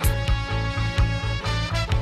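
Background music: an upbeat song with a steady bass and drum beat, starting abruptly right after a drum fill.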